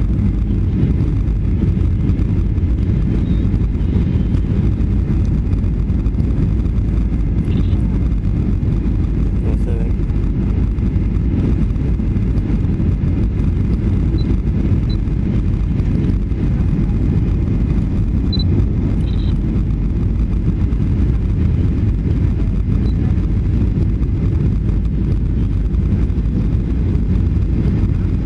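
Steady, deep rumble of engine and airflow noise inside the cabin of a Boeing 757-200 descending on final approach.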